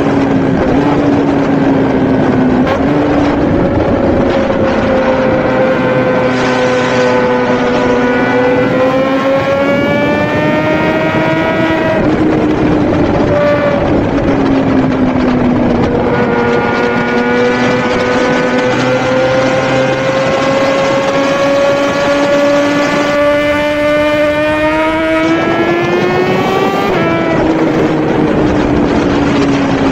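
Suzuki GSX-R1000 inline-four engine running hard at high revs, its pitch climbing slowly as the bike accelerates, with a break about twelve seconds in and a sharp drop near the end, over a steady rush of noise.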